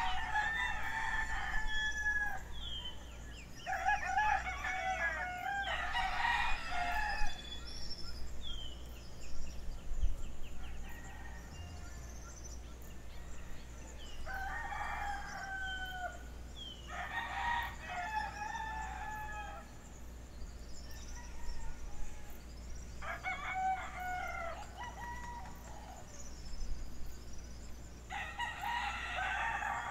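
Rooster crowing again and again, about seven crows a few seconds apart, each ending on a falling note. Faint small-bird chirps and a low steady hum run underneath.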